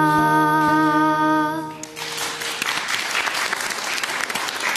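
A girl's voice holding the final sung note over instrumental accompaniment, ending about two seconds in, followed by audience applause.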